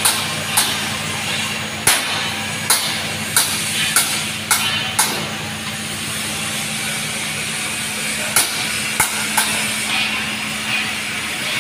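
Workshop noise: about ten sharp metal knocks, like hammer strikes, come in an irregular run over the first five seconds and a few more around eight to nine seconds in. Under them runs a steady machine hum with hiss.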